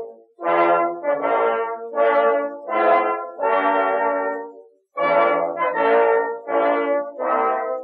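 Background music: a brass instrument playing a slow melody in separate, held notes, with a short break about five seconds in.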